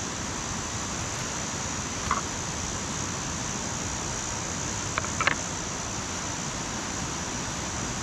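Steady rushing outdoor background noise with a constant high hiss on top, broken by a few short clicks about two seconds in and again about five seconds in.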